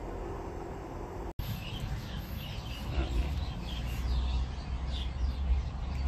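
Swiftlets chirping in short, scattered twitters over a steady low hum, with a sudden break in the sound a little over a second in.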